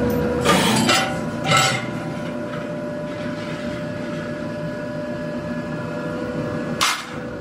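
Steady hum of a running press machine, broken by loud metallic clanks and scrapes as a steel wheel-disc plate is handled on the press: three in the first two seconds and one more near the end.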